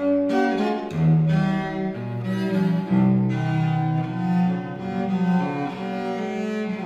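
Music of bowed strings with a deep, cello-like voice, playing held notes that move from one pitch to the next.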